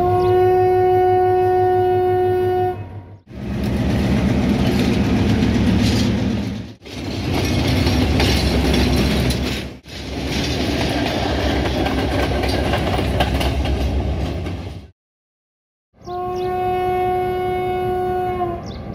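Class M6 diesel-electric locomotive's horn sounding one long steady blast. Then a train's heavy running rumble with a low, even beat, broken off briefly a few times. After a second of silence, the same long horn blast sounds again near the end.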